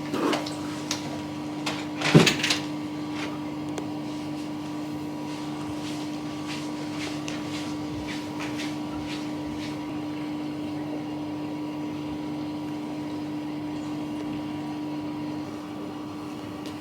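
Steady electrical hum of a running household appliance, with a few knocks and clatters near the start and a louder clatter about two seconds in; part of the hum cuts out near the end.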